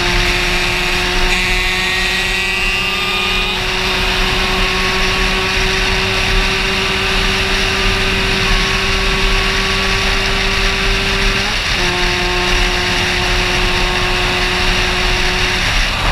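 Two-stroke moped engine, an AM6 fitted with an 88 cc Top aluminium cylinder kit, held at high revs at a steady pitch, with wind rush over the rider's camera. About three-quarters of the way in the engine note dips briefly and picks back up, then fades near the end.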